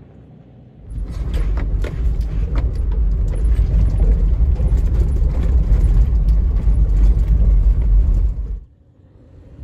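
Inside the cab of a 2018 Toyota 4Runner TRD Off-Road driving a rough dirt road: a loud low rumble of tyres and road noise, with knocks and rattles from the bumpy track. It starts suddenly about a second in and cuts off shortly before the end.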